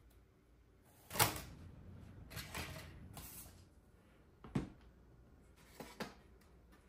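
Tabletop handling sounds as cut foam-board pieces and a toy RC truck chassis are moved and set down: a sharp knock about a second in, a stretch of rustling and scraping, then three lighter knocks near the end.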